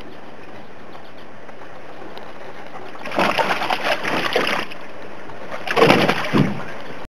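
Boston terrier splashing in shallow water in a plastic kiddie pool, his legs churning the water in two loud bursts, about three seconds in and again about six seconds in.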